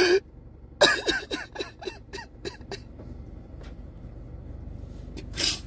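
A man crying: a sharp breath, then a run of short, choked sobs falling in pitch, and a breathy intake near the end.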